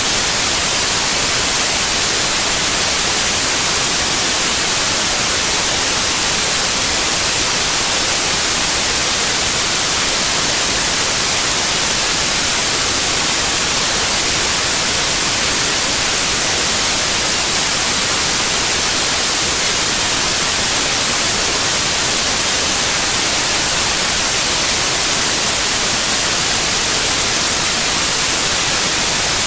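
Steady, loud hiss of static, strongest in the high end and unchanging throughout: recording noise rather than any sound from the scene.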